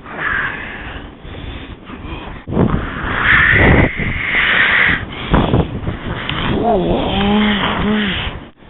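Blizzard wind buffeting the microphone: a loud, rough rushing that swells in gusts and eases. Near the end comes a brief wavering, voice-like tone.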